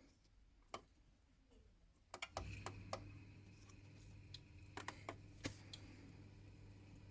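Faint clicks from a Vaillant gas boiler being worked, then a steady low hum sets in about two and a half seconds in, with more clicks over it.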